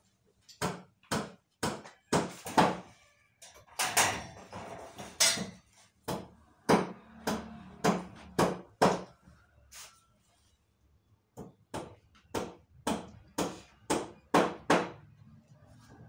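Automatic band-saw blade sharpening machine grinding the blade tooth by tooth, a short sharp grinding stroke about twice a second over the low hum of its motor, with a brief pause a little past the middle.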